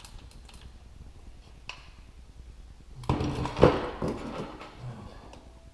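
Hand tools clicking and scraping on a chainsaw crankcase while a stuck Torx screw is being worked out, with a louder burst of handling and a sharp clatter about three and a half seconds in.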